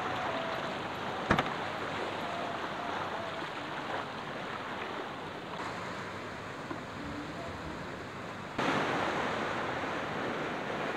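Steady wash of sea waves on the shore, with a sharp click about a second in. The wash grows louder for the last two seconds or so.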